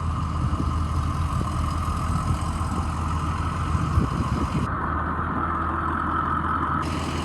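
2006 Ford E-450 Blue Bird bus engine idling steadily, a low hum with a steady higher hum above it, and a single short click about four seconds in.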